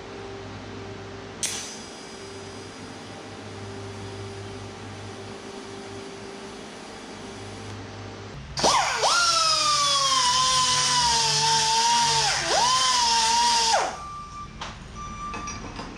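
Handheld electric drill running loud with a high whine for about five seconds in the second half. The pitch sags as the bit bites and dips sharply twice under load, then the drill stops suddenly. Before that there is only a faint steady low hum with a single click.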